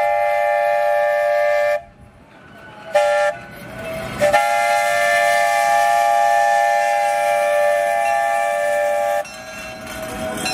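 Train whistle blowing a steady chord of several tones: a long blast, a short toot, then another long blast of about five seconds.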